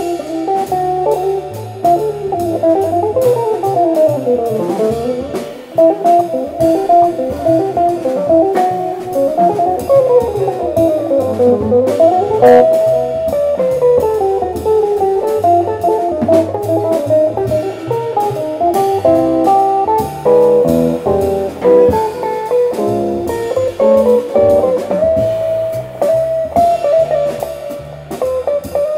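Jazz guitar trio playing: the guitar plays fast melodic runs that sweep up and down, over upright bass and a drum kit with cymbals.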